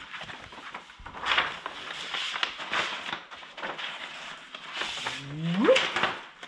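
A large sheet of laminated vinyl decal and its paper backing rustling and crinkling as it is handled and peeled apart. Near the end comes a short squeal that rises steeply in pitch.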